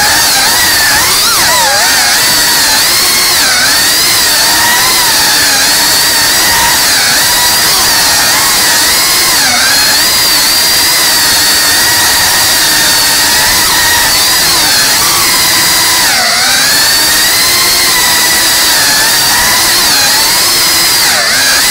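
FPV racing quadcopter's motors and propellers whining continuously, the pitch rising and falling with the throttle and dipping sharply several times as the drone turns and checks its speed.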